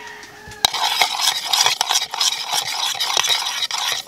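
Metal spoon stirring a liquid salad dressing in a ceramic bowl, starting with a clink about half a second in, then quick continuous scraping and clinking against the bowl.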